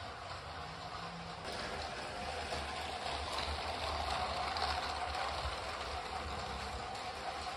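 Battery-powered Lego train motors whirring and plastic wheels rolling over plastic Lego track, a steady running sound that gets a little louder about a second and a half in.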